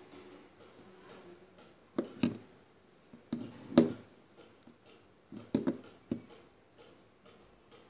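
Homemade tape-wrapped power bank knocking on a wooden desktop as it is picked up, turned over and set down: several separate knocks in small clusters, the loudest about four seconds in.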